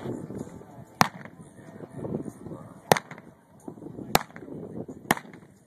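Four sharp clicks, one to two seconds apart, over a faint, uneven low background.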